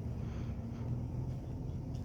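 JCB 3DX backhoe loader's diesel engine running steadily with a low hum.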